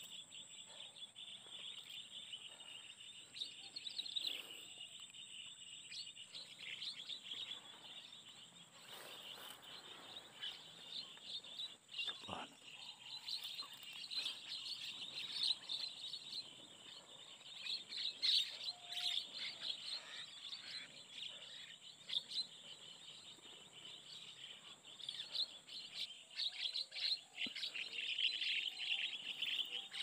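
A flock of birds calling: many short high chirps overlapping in a continuous chatter that swells and fades.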